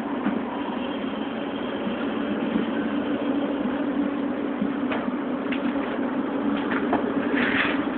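A steady low mechanical hum, with a few faint clicks and a short rustle near the end.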